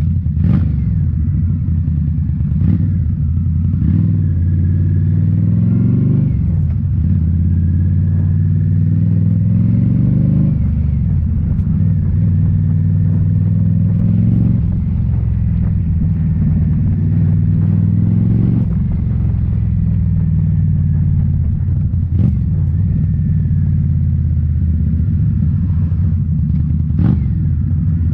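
2018 Indian Scout Bobber's V-twin running through Rinehart slip-on mufflers under way, its pitch climbing under throttle and falling back several times at gear changes or roll-offs.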